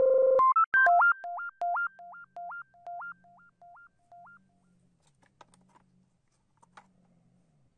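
Synthesizer intro jingle: a bright held chord, then a quick two-note figure that repeats about three times a second and fades away like an echo over about four seconds. Near the end come a few faint clicks from a plastic cassette case being handled.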